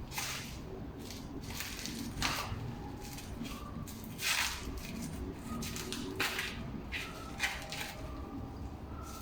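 Handling sounds: a series of brief rustles and light knocks, spaced about one to two seconds apart, over a low steady background.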